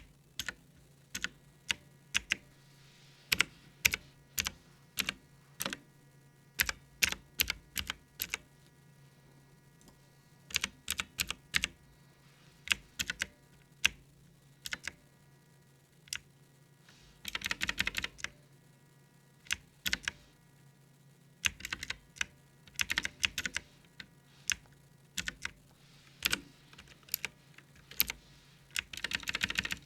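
Clicky mechanical keyboard switches on a budget mechanical keyboard with round typewriter-style keycaps, pressed one key at a time with short pauses, plus two quick flurries of rapid keystrokes, one midway and one near the end. A faint steady low hum runs underneath.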